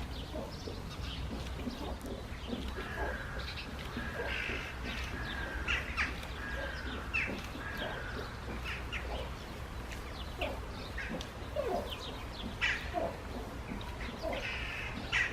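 Birds calling, with short chirps and caws coming every second or so, over a steady low hum.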